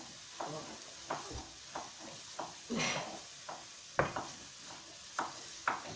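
Wooden spatula stirring onions in a stainless steel frying pan of hot oil: short knocks and scrapes against the pan, two or three a second, over a steady sizzle, with one louder knock about four seconds in.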